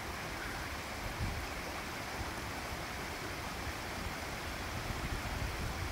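Steady rushing of falling water from a waterfall, an even hiss with a low rumble underneath.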